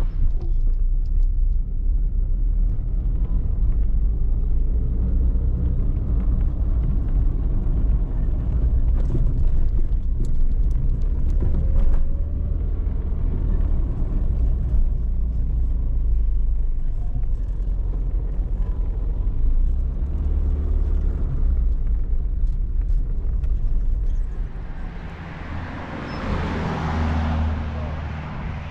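A car driving, its engine and tyres making a steady low rumble with scattered knocks and rattles. Near the end the rumble drops and a brief hiss rises.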